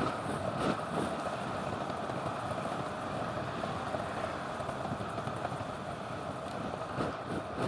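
Steady rush of wind over the microphone and road-bike tyres running on asphalt during a fast descent, with a few knocks from bumps in the road surface, one just under a second in and one near the end.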